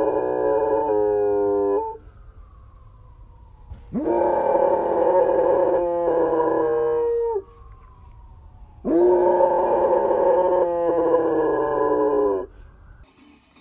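A dog howling: three long, drawn-out howls, each rising at the start and then held steady. The first howl is already going and stops about two seconds in, the second runs from about four to seven seconds in, and the third from about nine to twelve seconds in.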